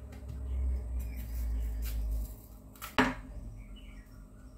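Chef's knife slicing a red onion on a bamboo cutting board with a low, dull sound, then one sharp clack about three seconds in as the knife is laid down on the board, followed by faint rustling as the onion skin is peeled off by hand.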